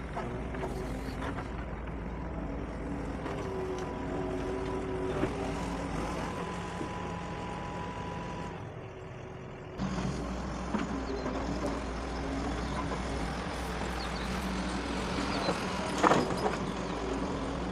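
Doosan DX140 excavator's diesel engine running steadily under load, with a hydraulic whine and a few sharp knocks, the loudest near the end. The sound dips briefly a little past the middle, then picks back up.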